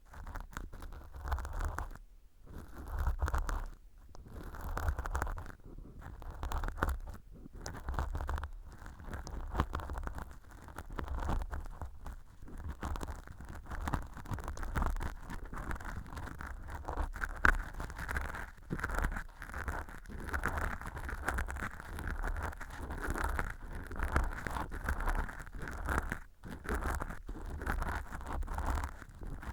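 Ear pick scratching and scraping dry, flaky fake earwax inside an ear-canal model right at the microphone, in rustling, crackly strokes that come in waves every second or two, with two short pauses near the start.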